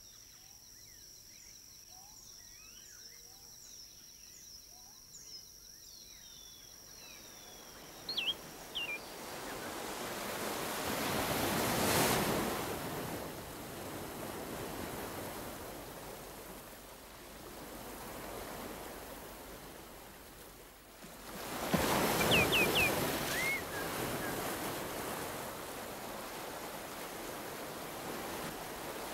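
Faint insect chirping gives way to sea surf: waves wash in and draw back, swelling about twelve seconds in and again, more suddenly, a little past twenty seconds. A few short, high bird cries sound over the surf.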